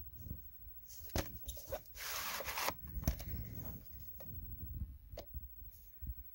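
Hands handling a VHS cassette and its cardboard sleeve: scattered light clicks and taps, with a rustling scrape about two seconds in.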